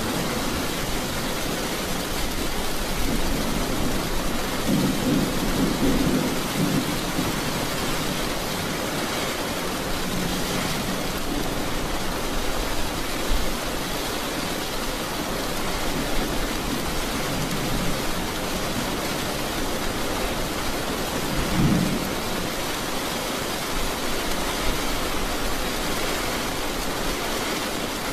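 Steady rain hissing, with low thunder rumbling in the background, swelling most around five seconds in and again briefly just after twenty seconds.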